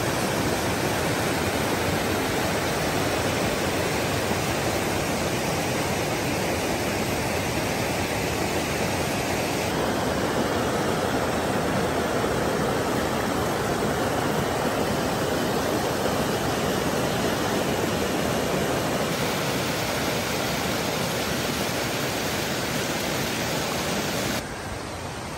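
A rocky mountain stream rushing and cascading over boulders: steady white-water noise that shifts in tone about ten and nineteen seconds in, and drops quieter about a second before the end.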